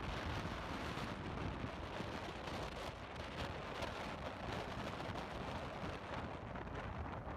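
Rain falling steadily: an even hiss with fine scattered drop ticks.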